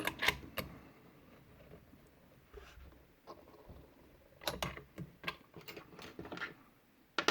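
Light metal clicks and taps as lock-picking tools are handled at a brass padlock held in a vise, a tension wrench being tried in the keyway. The clicks come scattered, with a run of them about four to six seconds in and a sharper one at the end.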